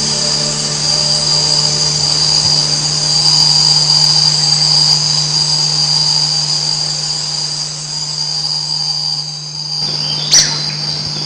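Night-time tropical forest insect chorus: a loud, steady, high-pitched chirring with a low steady hum beneath it. About ten seconds in comes one short, sharp, high call.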